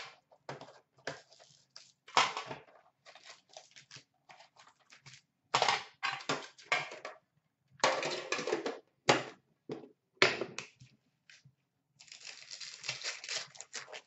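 Hockey card pack wrappers crinkling and being torn open by hand, in irregular bursts of rustling, with a longer crinkling stretch near the end.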